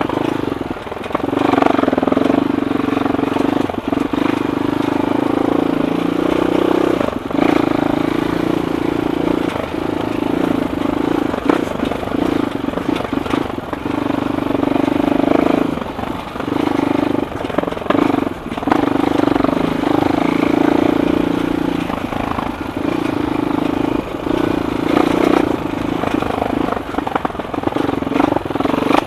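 Suzuki LTR450 quad's single-cylinder four-stroke engine running under steady throttle on a slow trail ride. The revs dip briefly every few seconds as the throttle is eased off.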